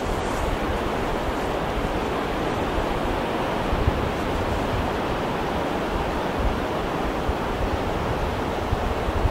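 Ocean surf with big waves breaking: a steady rush of noise over a deep, uneven low rumble.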